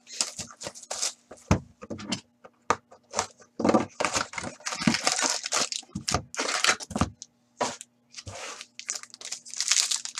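Cardboard hockey card box being opened, then a foil card pack crinkled and torn open: a run of irregular crackles and rips.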